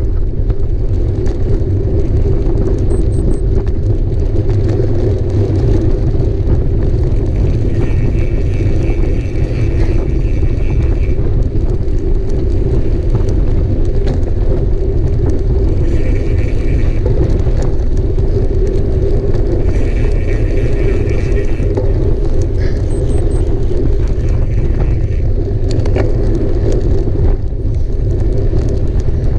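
Mountain bike ridden along a trail: a steady low rumble with scattered clicks and rattles, and a higher buzz that comes and goes several times.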